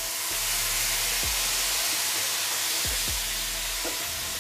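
Water poured into a hot pan of fried onion-tomato masala, hissing and sizzling into steam. The hiss swells through the middle and eases off near the end.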